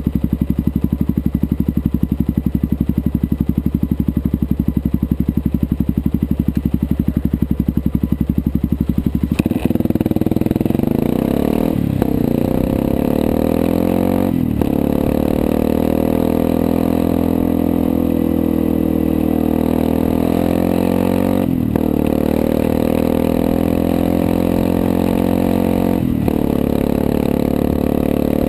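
Motorcycle engine idling steadily while stopped, then about ten seconds in it pulls away and accelerates, the pitch rising and dropping back at four gear changes.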